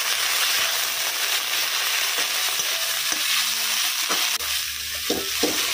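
Sliced onions with ginger and green chilli paste sizzling in hot oil in a wok, stirred with a metal spatula that scrapes and knocks against the pan a few times in the second half.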